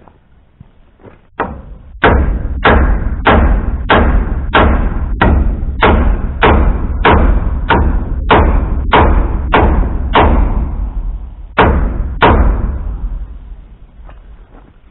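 Hammer driving nails into wooden boards: a steady run of about fifteen hard blows, roughly one and a half a second, then a short pause and two more blows.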